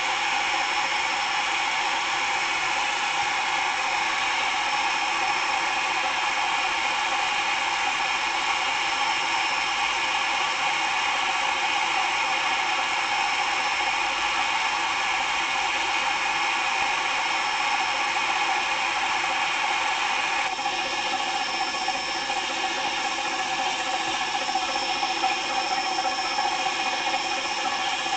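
Small electric motor and gears of a battery-powered toy train whirring steadily with a high whine, the tone shifting slightly about twenty seconds in.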